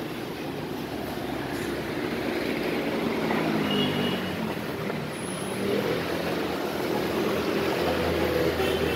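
Road traffic passing close by, a steady hum of engines and tyres that grows gradually louder.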